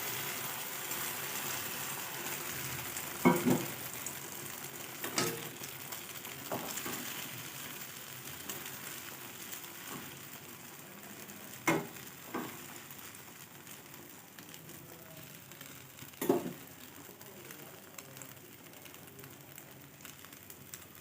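Egg omelette frying in a pan: a steady sizzle that slowly fades, broken by about six sharp knocks.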